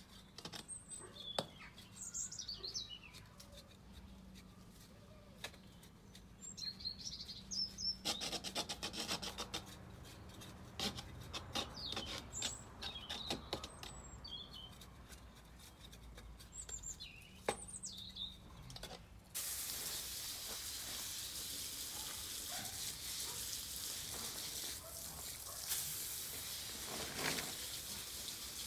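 Birds chirping over scraping, rubbing and scattered clicks as soil is worked around the base of a potted beech. About two-thirds of the way through, a garden hose spray nozzle starts suddenly, a steady hiss of water spraying onto the tree and its soil.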